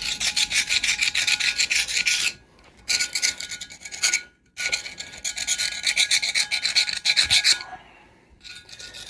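Hand scraping and scrubbing at the grime-caked screw of a leg vice: rapid back-and-forth strokes, about five a second, in three spells with two short pauses.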